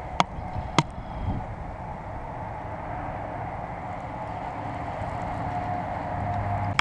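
Baitcasting reel being cranked to retrieve a jerkbait, with two sharp clicks about a second apart near the start, over a steady background hum.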